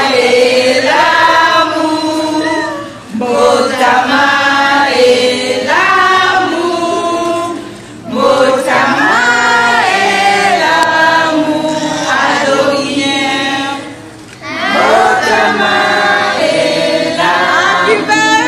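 A crowd of party guests, adults and children together, singing a birthday song in unison, in four phrases with short breaks between them.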